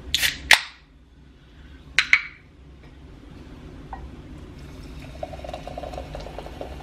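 A can of sparkling water cracked open with a sharp snap and short hiss, a second sharp click about two seconds in, then the sparkling water poured into a stemmed wine glass, filling and fizzing from about five seconds in.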